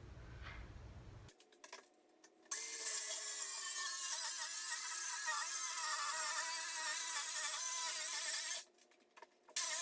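Ryobi circular saw running and cutting through a board, about six seconds. It cuts smoothly, then stops suddenly and starts again just before the end.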